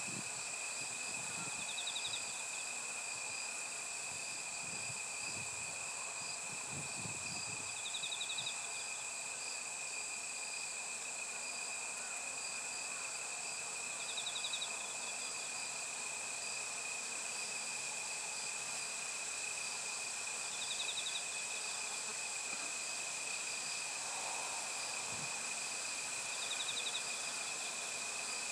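Chorus of singing insects such as crickets: a steady high-pitched trilling, with a short pulsed chirp from another insect repeating about every six seconds.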